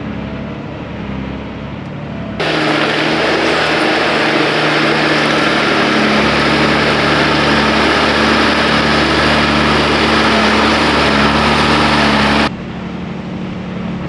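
Unimog expedition truck's diesel engine running steadily at low speed through a creek crossing. From about two seconds in until near the end, a loud, even rushing noise cuts in sharply over the engine and stops just as suddenly.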